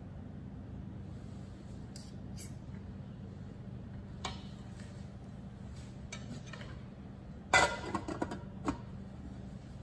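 A knife and fork tapping lightly against a nonstick pan a few times, then a glass pot lid set down on the square pan with a quick run of clinks and knocks near the end, the loudest sound. A steady low hum runs underneath.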